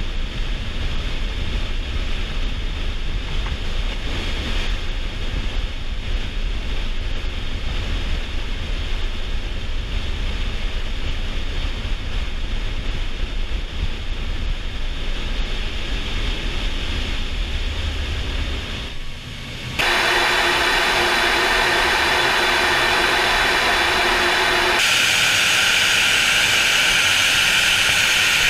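Air rushing through the open bomb bay of a Tu-22M3 bomber in flight: a deep, steady rumble with hiss. About twenty seconds in it cuts sharply to louder, steady jet noise with a whine, heard from inside a jet cockpit.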